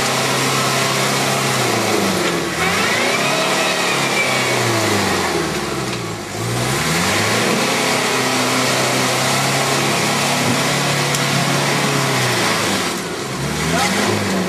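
Toyota Hilux pickup's engine revving hard as the truck forces its way through deep mud. It is held at high revs for several seconds at a time and drops off and climbs again three times.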